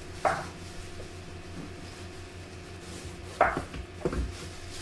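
A few scattered knocks and clatters of kitchen utensils and dishes being handled at a counter, one near the start and two close together near the end, over a steady low hum.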